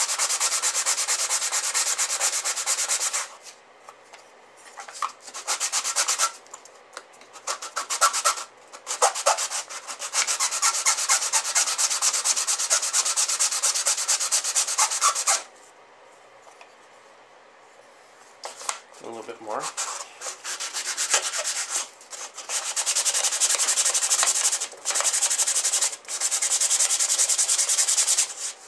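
Wooden box rubbed back and forth by hand on a sheet of sandpaper laid flat, sanding off glue and pencil marks after glue-up. It comes in runs of quick scratchy strokes, with pauses of a few seconds after the first few seconds and again a little past the middle.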